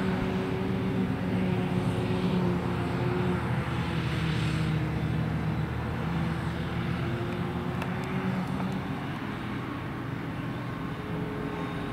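Claas Jaguar self-propelled forage harvester working a row of grass, its engine and chopper running with a steady drone. The hum dips slightly in pitch around the middle and comes back up later.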